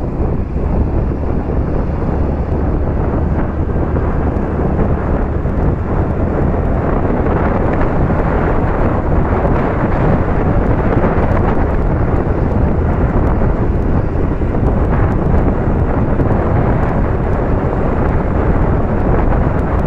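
Steady, loud wind rush buffeting the microphone on a moving scooter, mixed with the scooter's running and road noise.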